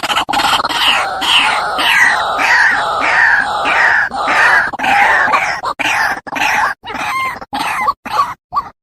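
White-breasted waterhen (ruak-ruak) calling from a lure-call recording: a loud run of harsh repeated notes, each dropping slightly in pitch, about two to three a second, breaking into shorter separate notes near the end.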